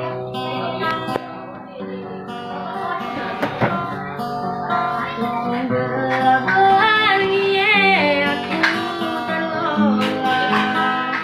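Acoustic guitar playing chords, joined partway through by a boy singing, his held notes wavering in pitch.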